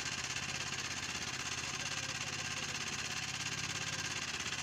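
An engine running steadily at idle, with a quick, even beat.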